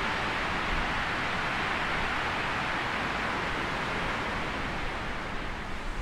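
Storm wind rushing steadily through woodland treetops, a continuous ocean-like rush.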